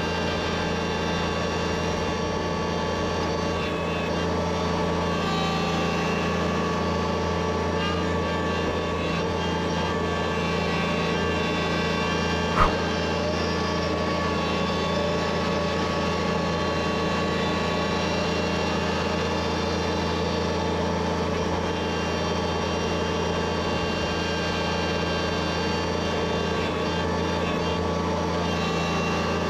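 XCMG wheel loader's diesel engine running steadily under work, a constant hum with steady tones, and a single sharp click a little before halfway.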